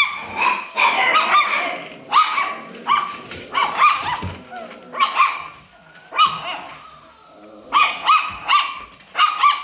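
Alaskan Klee Kai puppies yipping and barking during play, a quick run of short high-pitched yips with a brief lull a little past halfway.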